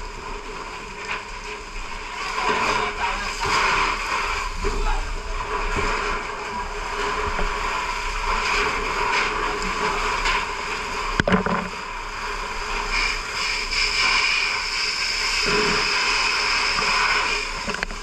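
Steady rush of water spraying from a fire hose, with an engine running underneath. A sharp knock about eleven seconds in.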